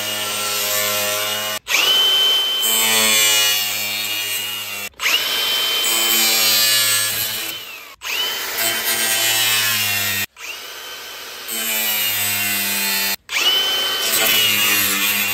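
Milwaukee Fuel cordless angle grinder cutting through a plastic honeycomb grille. It runs in about five separate bursts, each spinning up to a high whine that sags and wavers as the disc bites into the plastic, with abrupt breaks between them.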